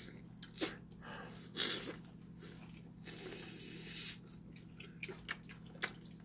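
A person eating a mouthful of lamb: soft mouth and chewing noises with a few small clicks, and a longer breathy hiss about three seconds in. A faint steady low hum runs underneath.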